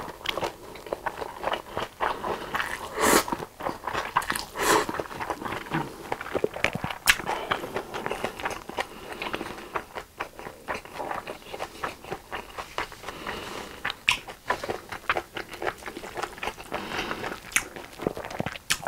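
Close-miked eating of japchae, Korean stir-fried glass noodles with beef and vegetables: the noodles sucked in with a slurp at the start, then steady wet chewing with many small sticky mouth clicks.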